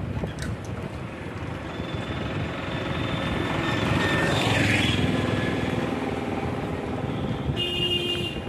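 Steady vehicle and wind noise on the move, swelling as a three-wheeled auto-rickshaw passes about four to five seconds in. A short high beep sounds near the end.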